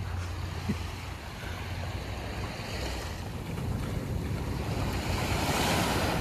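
Sea waves washing onto the beach, with wind buffeting the microphone; the wash builds toward a louder breaking wave near the end.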